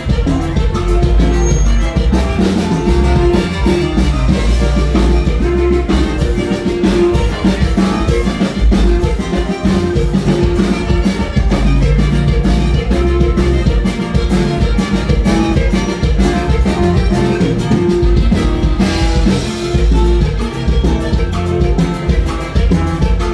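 Live norteño band music with saxophone, playing a huapango over a steady bass and drum beat.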